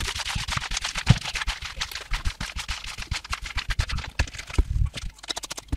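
Tarot cards being shuffled by hand, a rapid run of papery flicks and slaps that thins out to a few scattered clicks near the end.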